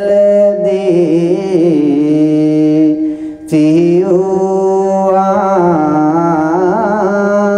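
A Buddhist monk chanting Sinhala verse (kavi bana) solo, a male voice holding long notes that waver and glide slowly in pitch, with a short breath break about three and a half seconds in.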